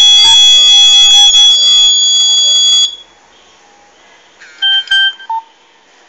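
The alarm kit's buzzer sounds a loud continuous high-pitched tone, signalling a detected accident, and cuts off abruptly about three seconds in. Near the end come a few short keypad beeps as keys are pressed on a Nokia mobile phone.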